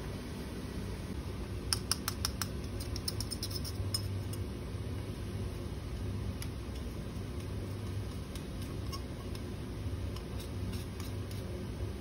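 Quick run of light clicks and taps from labware being handled, then a few scattered ticks, over a steady low hum.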